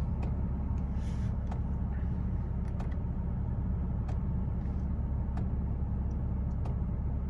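Porsche 987 Boxster's flat-six engine idling steadily while warm, with faint irregular ticks over a steady low rumble. The idle is smooth now that the failed air mass (airflow) sensor has been replaced.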